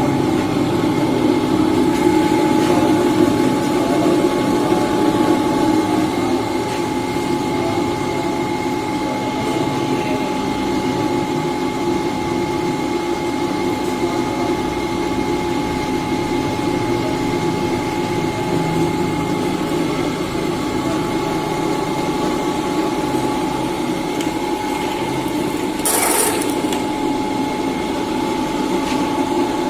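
Bench drill press starting up and running steadily, its electric motor and spindle giving a constant hum with a steady whine. A short sharp knock comes near the end.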